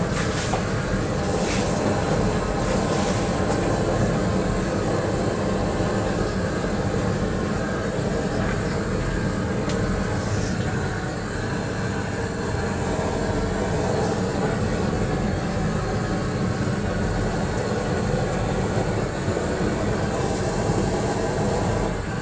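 Hose-fed gas blowtorch burning steadily as its flame singes the fur off a carcass.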